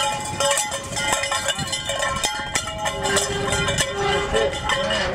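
Bell on a bull rope clanking in quick, irregular strikes as the bull moves, each strike ringing briefly.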